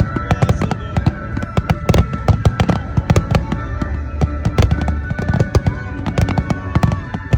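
A fireworks finale: rapid, dense bangs and crackling bursts, one after another, with music playing underneath.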